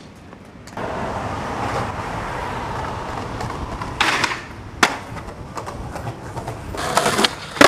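Skateboard wheels rolling steadily over concrete. Then a short scrape and a few sharp clacks of the board hitting the ground.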